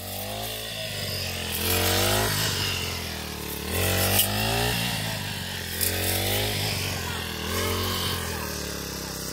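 Backpack brush cutter's small engine running, its revs rising and falling again and again about once a second as the cutting head is swung through dry grain stalks.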